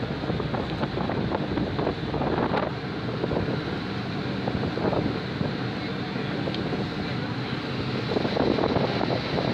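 Wind buffeting the microphone over the steady drone of a ferry's engine, with sea water rushing past the hull.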